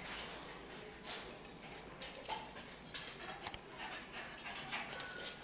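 Shiba Inu puppies scampering and tussling over toys on a tile floor: faint, irregular clicks and scuffles of claws on tile.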